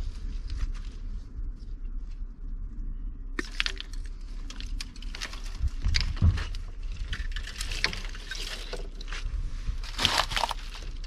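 Irregular crackling and rustling of wires being tugged and pulled free from a salvage truck's wiring harness, starting about three seconds in, over a low steady rumble.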